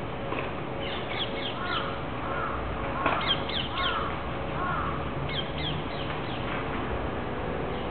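Birds calling: a run of short arched calls mixed with clusters of quick, high, falling chirps, over a faint steady hum.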